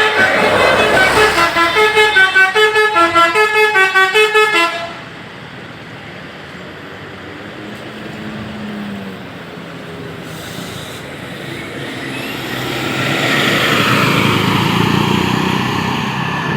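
Basuri 'telolet' multi-tone bus horn playing a quick tune of pulsing notes, about three a second, that stops abruptly about four and a half seconds in. After it comes road and engine noise of passing traffic, swelling toward the end.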